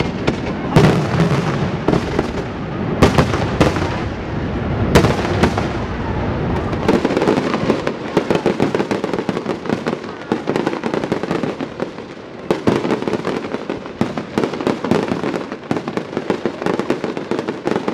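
Fireworks display. Several loud shell bursts go off in the first five seconds, then a dense run of rapid crackling reports follows, as sparks pour from fountains fired off a castle tower.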